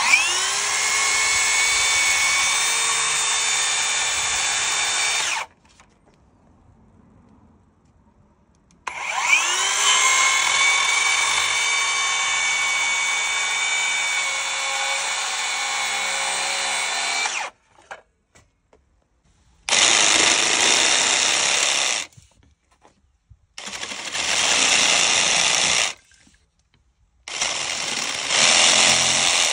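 Cordless HiKOKI brushless circular saw spinning up with a rising whine and then ripping along a timber trim board in two long cuts. Three shorter, rougher bursts of cutting follow, the last of them a cordless jigsaw sawing through the board.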